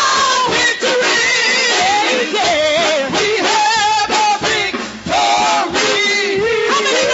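Gospel praise music with singing, the voices gliding and wavering in pitch.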